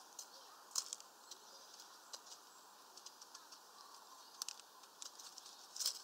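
Tits at a hanging mesh peanut feeder, a scatter of sharp clicks and taps from pecking at the nuts and gripping the mesh, the loudest about a second in and near the end.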